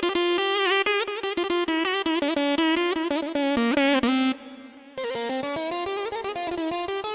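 Korg Kronos 2 keyboard playing a plucked, guitar-like patch: a fast run of notes with pitch bends. The playing breaks off briefly about four seconds in, then goes on more softly.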